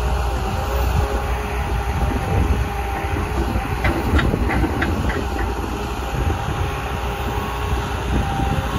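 Cat 316E L excavator's diesel engine running under hydraulic load as the boom and bucket lift, a deep steady rumble with a steady whine over it. A quick run of short, high squeaks comes about four seconds in.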